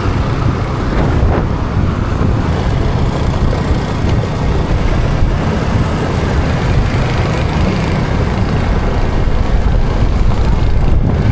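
Steady road traffic and vehicle engine noise with a heavy low rumble.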